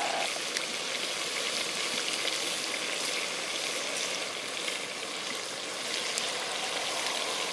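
Sausage, pork, moose meat and carrots sizzling in oil in a cast iron potjie pot over a wood fire: a steady frying hiss with small crackles.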